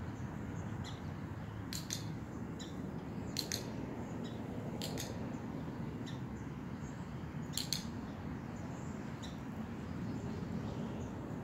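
Steady outdoor background noise with short, sharp high-pitched clicks every second or two, some coming in quick pairs.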